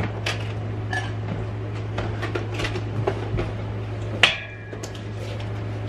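Ceramic dishes and mugs clinking and clattering as they are handled, in a run of small knocks. About four seconds in, one sharp clink rings briefly.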